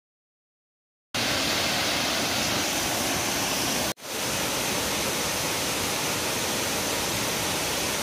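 Abbey Falls, a large multi-tiered waterfall in heavy flow, giving a steady rush of falling water. It starts abruptly after about a second of silence and breaks off for a moment about halfway through.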